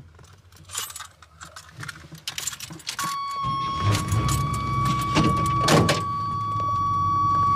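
Keys jangling at the ignition. About three seconds in, a steady high warning buzzer comes on, and a moment later the 1986 Chevy C10's engine starts and runs at a cold idle under it.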